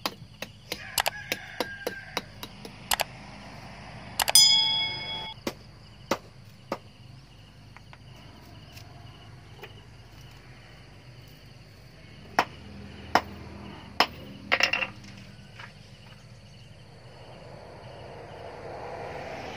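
Sharp clicks and snaps of charcoal lumps and dry twigs being handled and broken on a charcoal forge hearth, thickest in the first few seconds, with a bright ring about four seconds in and a few more snaps and a short scrape near the end.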